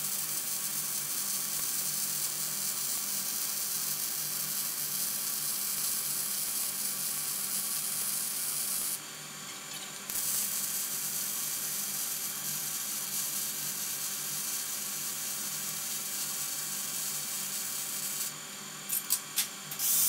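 MIG (gas metal arc) welding arc on 4-inch heavy-wall pipe, .030 ER70S-6 wire in C25 gas at about 17 volts, running steadily in short-circuit transfer for the cap pass. The arc stops for about a second near the middle and restarts, then stops a couple of seconds before the end, followed by a few clicks.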